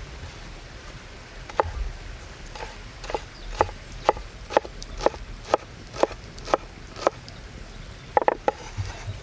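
A run of sharp knocks, about two a second, ending in a quick cluster of three or four knocks near the end.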